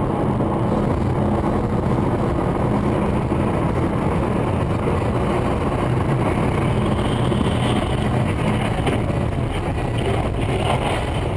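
Steady engine and road noise of a car driving.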